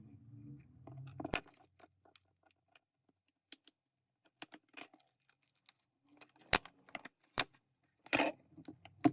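Small hard-plastic clicks and taps from the parts of an opened PS5 DualSense controller being handled and set down during disassembly. One sharp tick comes about a second in, then several near the end, with a short rattle among them.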